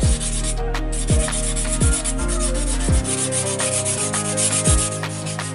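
Sandpaper rubbing back and forth over hard styrofoam as a model-plane fuselage is rounded by hand. Background music with a deep bass-drum beat about once a second plays throughout, and its drum hits are the loudest sounds.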